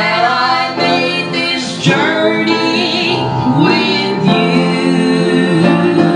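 A woman singing a song into a microphone, holding long notes, with instrumental accompaniment.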